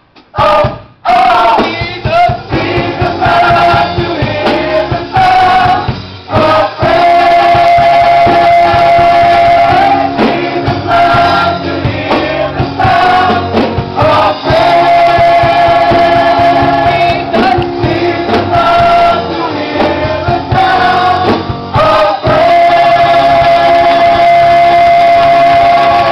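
Gospel choir singing with instrumental accompaniment, holding long sustained chords.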